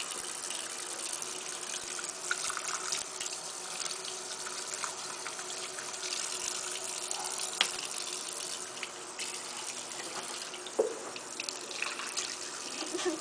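Tap running steadily into a ceramic washbasin, splashing as a toothbrush is rinsed under the stream. Two sharp knocks in the second half.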